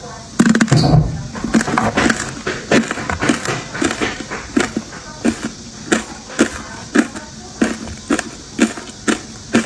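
Ice coated in matcha powder being bitten and chewed. A loud bite comes about half a second in, then a steady run of crunches, about two a second.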